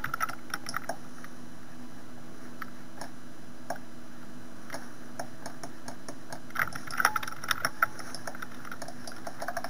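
Scattered clicks of a computer mouse and keyboard over a steady low hum, with a quick run of clicks about seven seconds in.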